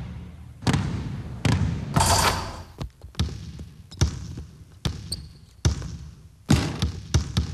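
A basketball being dribbled: echoing bounces, about one a second at first and coming faster near the end.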